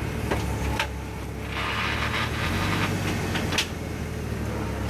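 Off-road Jeep's engine running at low revs as it crawls and repositions on rock, with a gritty scraping of tires on rock and dirt about one and a half to two and a half seconds in and a few sharp knocks.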